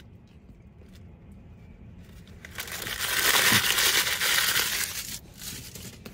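Paper food packaging crinkling and rustling for about three seconds, starting about two seconds in.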